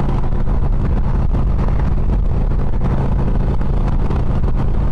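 Motorcycle engine running at a steady cruise, with wind noise on the microphone.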